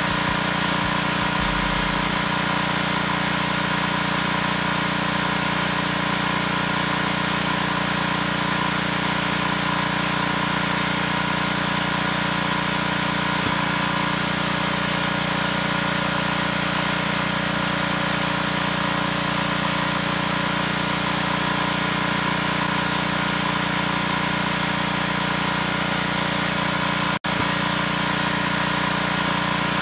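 Wheel Horse garden tractor's Kohler K-series single-cylinder engine running steadily at idle, with a brief break in the sound near the end.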